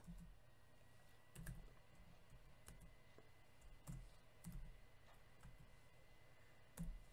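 Faint computer keyboard keystrokes: a handful of isolated clicks spread unevenly over several seconds.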